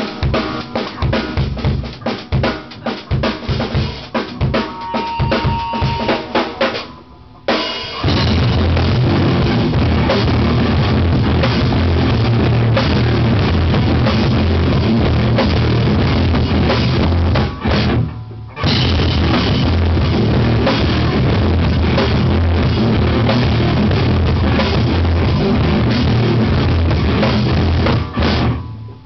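Live rock band playing in a small rehearsal room: a Yamaha drum kit with bass drum and cymbals, plus electric guitars. It opens with about seven seconds of sharp hits played together, stops for a moment, then the whole band plays on steadily, breaking off briefly about halfway through and again at the end.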